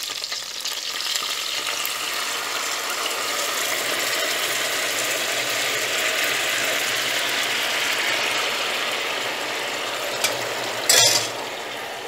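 Small pelmeni sizzling in hot oil in a frying pan as ladlefuls of broth are poured in over them. A short sharp clatter comes near the end.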